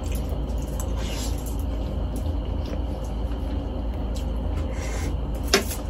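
A steady low rumble of background hum, with faint eating sounds over it: spaghetti being twirled on a fork and slurped, and one sharp click of the fork near the end.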